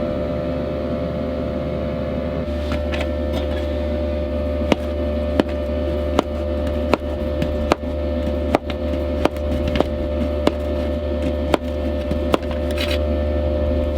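Diesel heater running with a steady buzzing hum. From about a third of the way in, a knife chops on a cutting board in a slow, slightly uneven rhythm of about one to two sharp taps a second.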